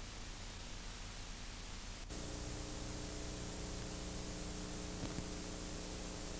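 Steady hiss and static of an old analogue video recording with no programme sound. About two seconds in there is a brief dropout, after which the hiss is a little louder and a steady electrical hum joins it.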